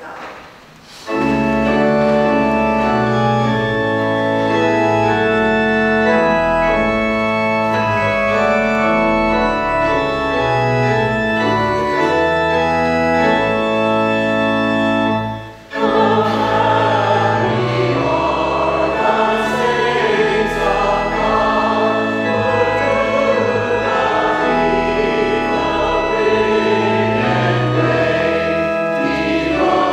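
Church organ playing held chords for about fifteen seconds. After a brief break, voices join in singing a hymn with the organ.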